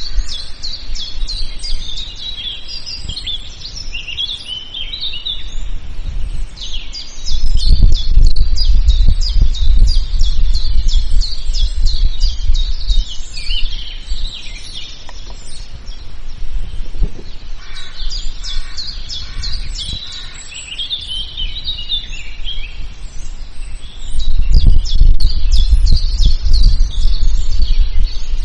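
A chorus of many songbirds chirping and singing at once. A loud low rumble comes in about seven seconds in, eases off after about nine seconds, and returns near the end.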